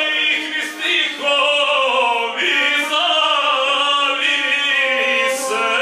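A man singing Balkan epic verse in the guslar style, accompanying himself on the gusle, a one-string bowed folk fiddle.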